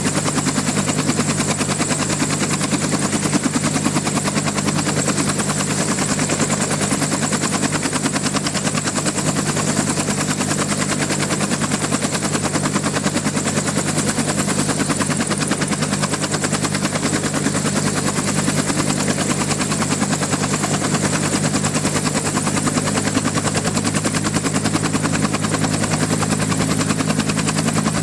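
Electrical interference heard as audio: a steady, very rapid pulsing buzz over a low, even hum.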